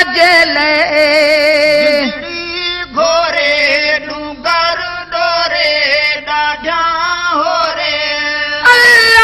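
Devotional song: a solo voice sings a long wordless melodic line of held, wavering notes that glide from one to the next.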